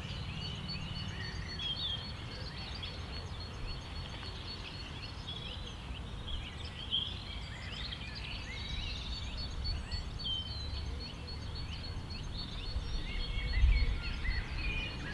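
Several songbirds chirping and singing at once, with a thin, rapidly repeated high note running through. Underneath is a steady low rumble that swells briefly near the end.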